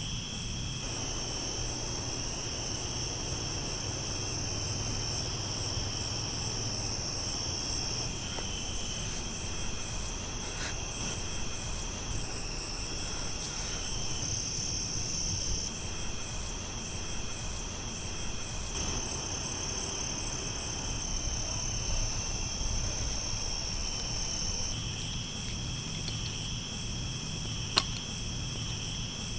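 Crickets chirping in a steady night chorus, with a single sharp click near the end.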